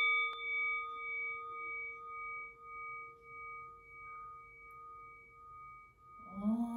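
Metal singing bowl ringing after a mallet strike, its tone fading slowly with a pulsing waver. Near the end a woman's voice comes in, sliding up into a long held chanted note.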